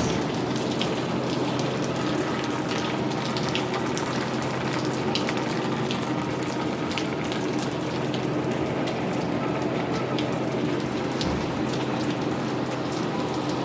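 Steady rain falling, with many single drops striking close by as short sharp ticks.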